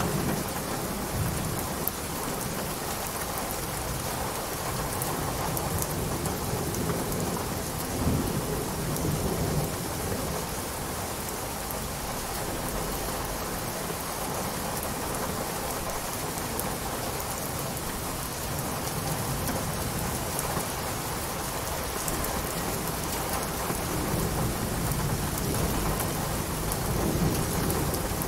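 Steady rain, an even hiss of falling drops, with low rumbles of thunder swelling near the start, about eight seconds in, and again near the end.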